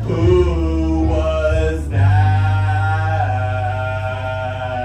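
Musical number ending: voices holding long sung notes over a backing track with a steady bass note, moving to a new held chord about two seconds in and easing off toward the end.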